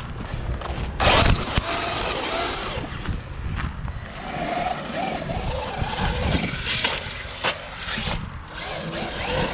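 Traxxas UDR electric RC desert truck driving over rough ground: its brushless motor whines, rising and falling in pitch, over the noise of tyres on dirt. A loud knock comes about a second in, with a few sharper knocks later.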